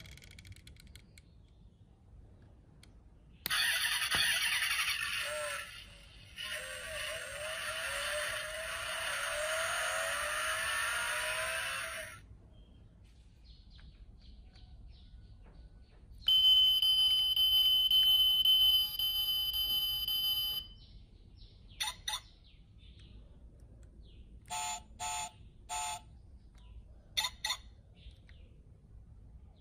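A die-cast Bugatti Chiron model car's sound module playing a recorded engine run-up, with rising revs, through its small speaker. Then it gives a steady high electronic tone for about four seconds, followed by a few short beeps.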